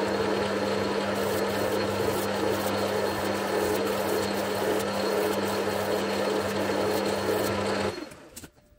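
Metal lathe running with a steady hum while a strip of P180 abrasive cloth, backed by a file, is pressed against the spinning metal roller to polish its newly crowned face. Near the end the lathe is switched off and runs down quickly.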